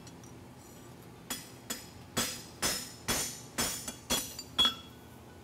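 Hammer blows on a hot steel draft horseshoe on the anvil, eight ringing strikes at about two a second starting a little over a second in, as the shoe is shaped by hand.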